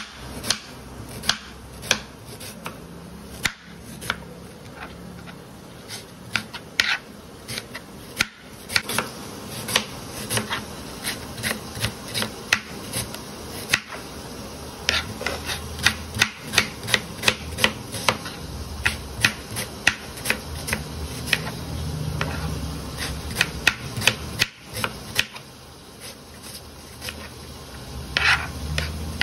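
Kitchen knife slicing red onions on a cutting board: a run of sharp taps as the blade hits the board, irregular at about two a second, coming faster in stretches.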